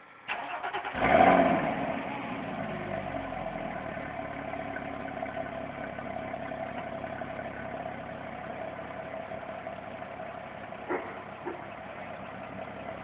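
Porsche Cayman 2.9 L flat-six being started, heard at the tailpipe: the starter cranks briefly, the engine catches with a flare in revs about a second in, then settles to a steady idle.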